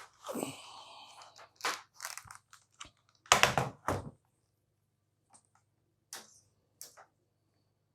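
Objects being handled and set down: a rustle, a few sharp knocks, and a louder clatter about three and a half seconds in, then a few light clicks. A faint steady low hum runs underneath.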